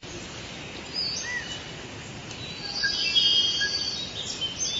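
Birds chirping and calling, with short whistled notes and a quick high trill midway through, over steady outdoor background noise.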